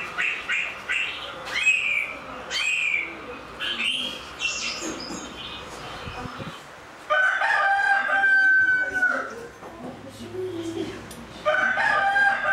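Small birds chirping in quick, falling chirps, then a rooster crowing: one long crow partway through and a second starting near the end.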